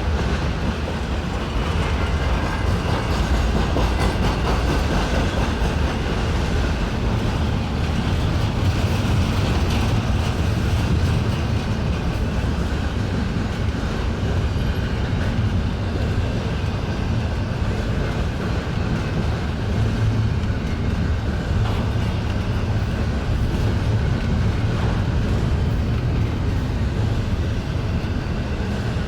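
Cars of an intermodal freight train rolling past at speed: a steady rumble of steel wheels on rail.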